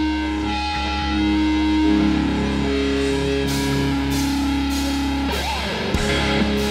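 Hardcore band playing live: electric guitars hold droning chords and feedback tones, and about halfway in the drums come in with cymbal hits on a steady beat of under two a second, building into the next song.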